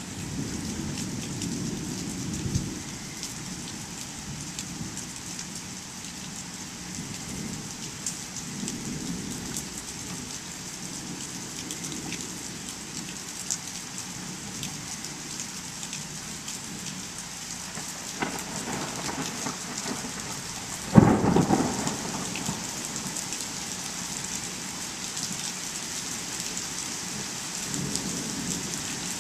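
Steady rain with thunder rumbling low now and then. One sharp thunderclap comes about three quarters of the way through and is the loudest moment, with a rumble trailing after it.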